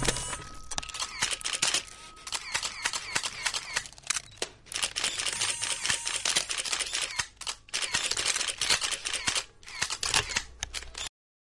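Many camera shutters clicking rapidly and irregularly, like a crowd of press photographers firing away. A few clicks stand out louder, and the sound cuts off abruptly near the end.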